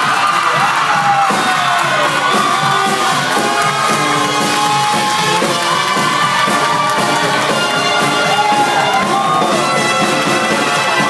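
Loud music over crowd noise, its melody sliding up and down in pitch.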